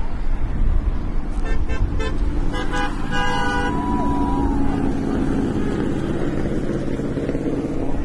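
Car horns honking: a few short toots, then a longer honk about three seconds in, over the steady low rumble of road traffic.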